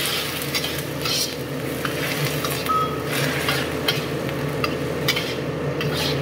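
Sliced onions sizzling in a hot wok just after a little water is added, steaming, while a stainless steel wok spatula stirs them with repeated scrapes against the pan.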